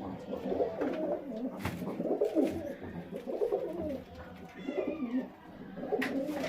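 Several domestic pigeons cooing over one another in an enclosed loft, with a couple of sharp taps, one about a second and a half in and one near the end.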